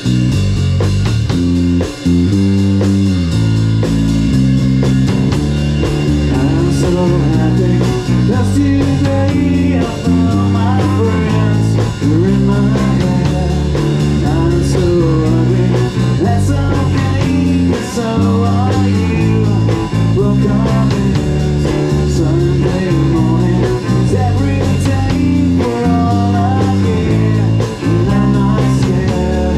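A rock band playing live and loud: electric guitar, bass and drums, with a man singing over them.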